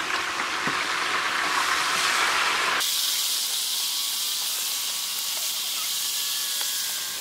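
Stingray pieces frying in a large pan of hot oil: a steady sizzle and hiss. About three seconds in it changes abruptly to a thinner, higher hiss.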